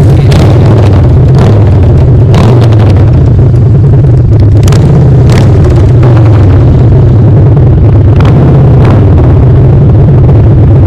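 2007 Harley-Davidson Night Train's V-twin running loud and steady through Vance & Hines Big Radius pipes with the baffles removed: an open, deep exhaust growl.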